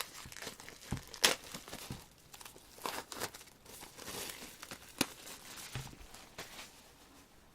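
K-pop CD album packaging being handled and opened: irregular crinkling and tearing, with a few sharp clicks.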